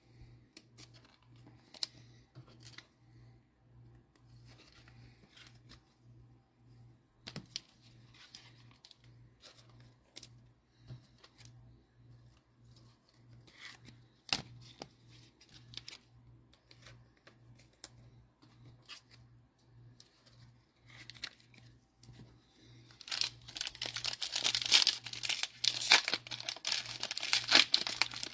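A foil wrapper of an NFL Mosaic trading card pack being torn open and crinkled, starting about 23 seconds in and loudest near the end. Before that there are only scattered light clicks and rustles of cards being handled.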